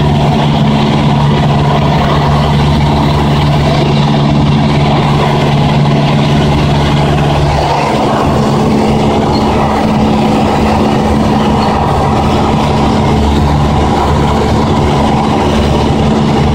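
Cessna 172's piston engine and propeller running steadily at cruise, heard inside the cabin as a loud, even drone with airflow noise. Its tone changes slightly about halfway through.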